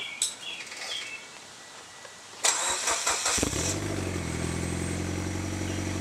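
Mitsubishi Lancer Evolution X's turbocharged 2.0-litre four-cylinder cranked by the starter about halfway through, catching within a second and settling into a steady idle through a freshly installed CP-e cat-back exhaust.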